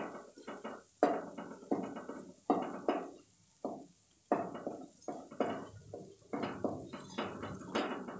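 Wooden spatula stirring and scraping a cooking mixture around a non-stick kadai, in quick repeated strokes about two to three a second, with a short pause a little past three seconds in.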